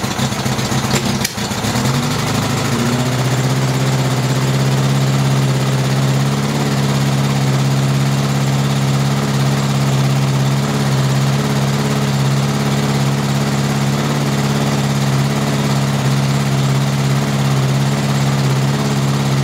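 Suzuki GS1000 air-cooled inline-four motorcycle engine running on freshly rebuilt carburetors that are still being tuned. It runs unevenly for the first two seconds, with a sharp knock about a second in, then settles into a steady idle.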